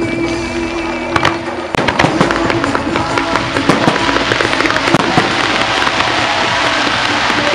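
Fireworks display: aerial shells burst with sharp bangs and crackle over music. From about two seconds in, ground fountains add a dense, steady hissing crackle.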